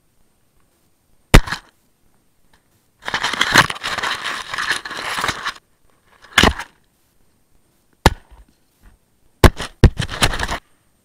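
Handling noise on an action camera: sharp knocks on the body, and a few seconds of scraping and crunching right at the microphone as it is pressed into snow. Near the end comes a quick cluster of knocks.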